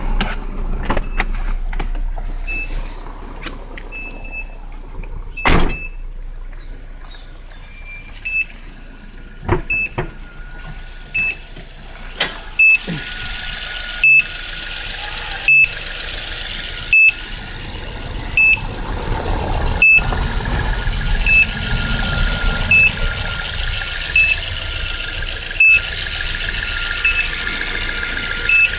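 A Suzuki Splash giving a strange electronic beeping after a dead battery: a short, high beep repeating evenly about every one and a half seconds. A steady high whine joins it from about halfway through.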